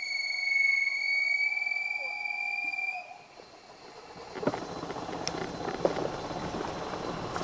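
A steady high-pitched tone held for about three seconds, then cut off. About a second later comes the crunching rumble of a golf cart rolling over gravel, with a couple of sharp bumps.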